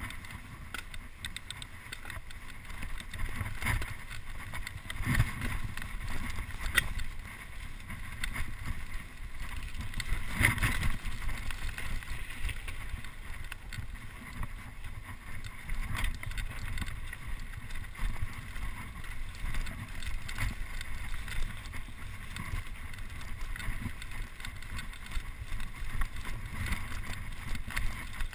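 Mountain bike descending a rough, rocky dirt trail: a steady rumble of tyres and wind on the microphone, with frequent sharp knocks and rattles from the bike over bumps and rocks.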